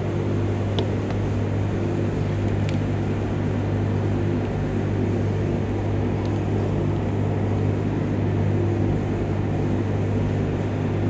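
Steady hum of running machinery: a deep drone with several higher steady tones above it. Two faint clicks come in the first three seconds.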